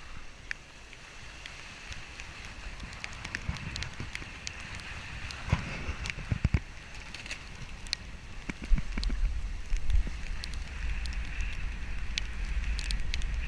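Volkswagen Amarok pickup driving slowly off-road on a narrow dirt forest track: scattered crackles and snaps of twigs and gravel, a few knocks about six seconds in, and a low rumble that gets louder about nine seconds in.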